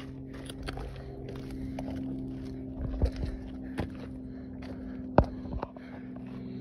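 Footsteps on a rocky hiking trail, with a few sharp scuffs and knocks, over a steady motor drone that holds one pitch throughout.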